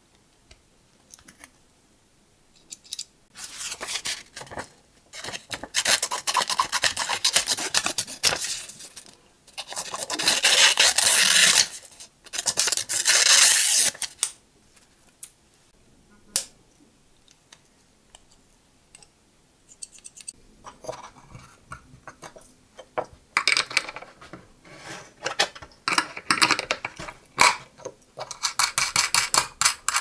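Victorinox Swiss Champ multitool being handled: its metal tools clicking as they are pulled open and folded, with long stretches of dense metal scraping and rubbing. There is a quieter stretch of a few scattered clicks in the middle, and the scraping and clicking pick up again near the end.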